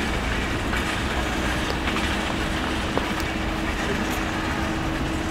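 Steady low rumble of city traffic, with a steady hum that comes in about a second in and a few faint clicks.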